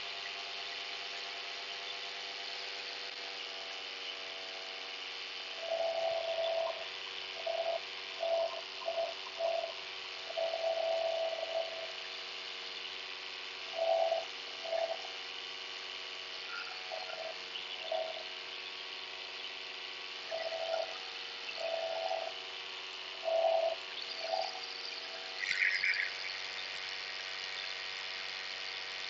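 Paramotor engine and propeller running steadily in flight, a constant buzzing drone with hiss above it. From several seconds in, short pitched tones of varying length come and go on top of the drone, about a dozen times, with a brief higher chirp near the end.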